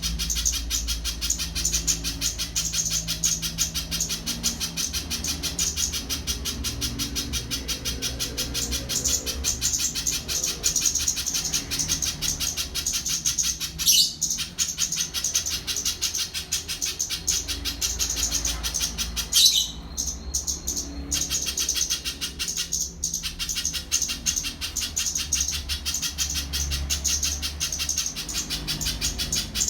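Little spiderhunter singing a rapid, unbroken chatter of evenly repeated high notes, with a couple of sharp louder notes partway through.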